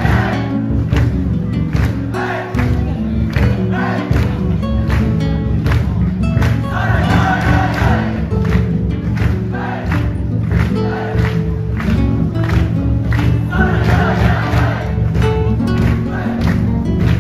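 Loud music with a steady beat and held notes, and a large crowd singing and shouting along. Their voices swell about every seven seconds.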